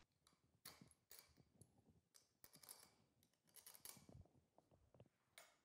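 Near silence, with a few faint, scattered clicks and light taps: small metal parts and screws being handled and fitted on a kart engine's aluminium crankcase.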